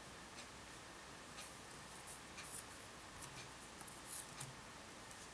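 Faint, irregular rustling and light scratchy clicks from rolled-paper tubes being bent and folded over one another by hand while weaving a braid, with a couple of slightly louder clicks a little past four seconds.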